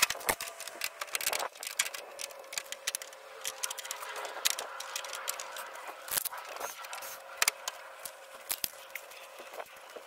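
Irregular clicks, scrapes and rattles of hands working at wiring and parts in a pool heater's open control compartment, over a faint steady hum.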